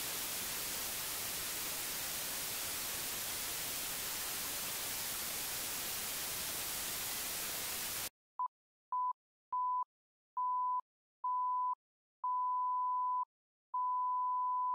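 Television static sound effect: an even white-noise hiss that cuts off abruptly about eight seconds in. Then a test-tone beep at one steady pitch sounds seven times, each beep longer than the one before, the last still going at the end.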